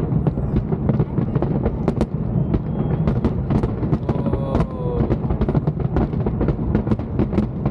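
Aerial fireworks bursting in rapid succession: many sharp bangs and crackles, close together, over a continuous low rumble.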